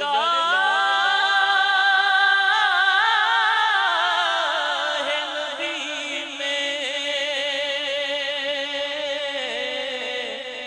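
A man's voice singing a naat (Urdu devotional poem) into a microphone, drawing out long ornamented notes with vibrato. The voice climbs onto a held note at the start and sinks to a lower wavering note after about four seconds.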